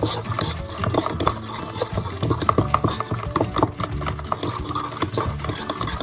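Spoons stirring a thick mixture of clear glue and bicarbonate of soda in bowls, with repeated uneven clicks and taps of spoon against bowl.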